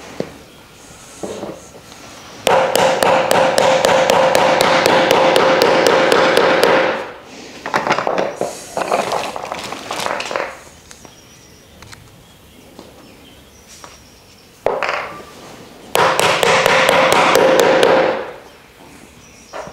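Two rapid runs of hammer taps on the wooden parts of a plant stand, each lasting a few seconds, the blows ringing with a steady pitch. A softer rustle and handling sound comes between the two runs.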